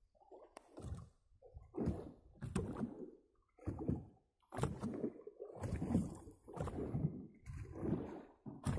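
Water slapping and sloshing against a small boat's hull in uneven bursts, roughly one a second, with short quiet gaps between.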